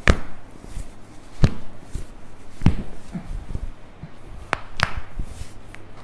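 Thoracic spine joints cracking under a chiropractor's downward hand thrusts on the upper back: about five sharp pops spread over a few seconds, picked up close by a lapel microphone clipped to the patient's back.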